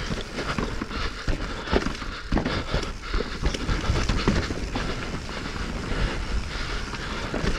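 Mountain bike clattering over rough trail rock: tyres knocking on stones and the bike's chain and frame rattling in irregular jolts, over a steady rush of wind and rolling noise.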